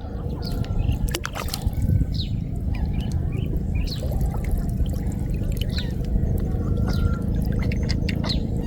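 Water trickling and dripping with small splashes as a gill net is hauled out of floodwater, over a steady low rumble.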